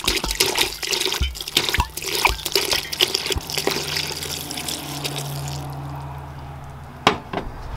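Water poured in a steady stream into a stainless steel stockpot onto a bed of dandelion flowers, splashing as it lands. About six seconds in, the splashing dies down to a thinner trickle, and there is one sharp knock near the end.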